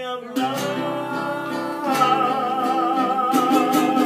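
Men singing a Spanish-language love song to three acoustic guitars. Strummed chords come in, and from about two seconds in the voices hold one long note with vibrato.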